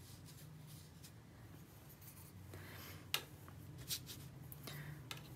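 Faint paintbrush strokes on cold-press watercolour paper: a few short, soft scratchy swishes, the loudest about three seconds in, over a low steady hum.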